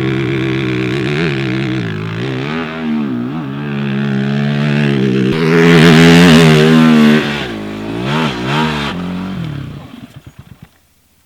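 Honda TRX450 quad's single-cylinder four-stroke engine revving up and down under throttle, loudest about six to seven seconds in. Near the end it sputters and cuts out, leaving near silence.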